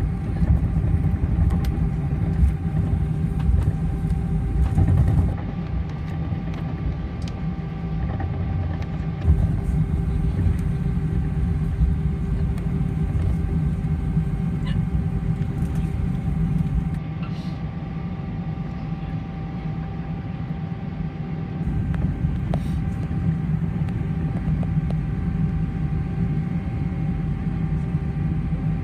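Cabin noise inside an Airbus A320 taxiing: the steady whine of the jet engines at idle over a low rumble. The lowest note of the whine drops out a little past halfway.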